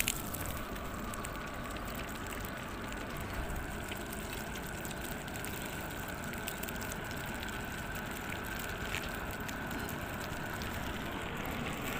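Steady trickling of water, with a few faint clicks scattered through it.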